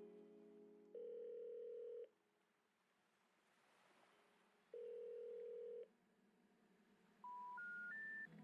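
Telephone tones: two long, steady low beeps a few seconds apart, then three short beeps climbing in pitch near the end, the three-tone intercept signal that a call cannot be connected.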